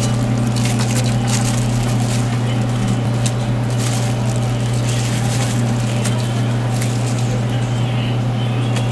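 Metal gelato spatula scraping and pressing soft gelato onto a waffle cone, with scattered light scrapes and taps over a steady low hum.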